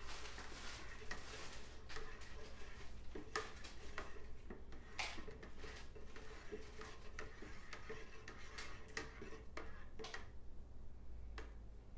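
Long plastic brewing spoon stirring a must of pyment in a plastic fermenting bucket, knocking and scraping against the bucket's sides in irregular clicks and knocks.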